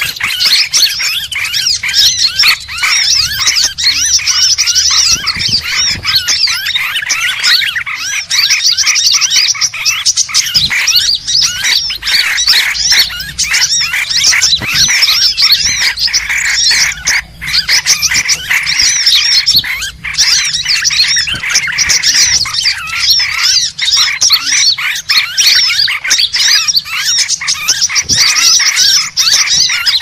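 Dense, non-stop high chirping and twittering of many small birds calling over one another, a bird-lure (pikat) recording meant to draw birds in.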